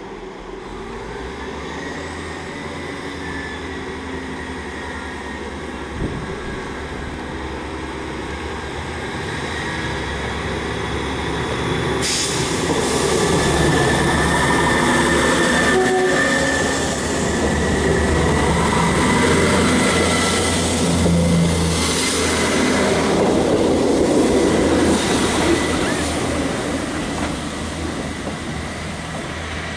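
Class 159 diesel multiple unit pulling away under power: its underfloor Cummins diesel engines and wheels on the rails grow louder as the train draws past close by, then ease off as it runs away down the line. There is a single sharp knock about six seconds in.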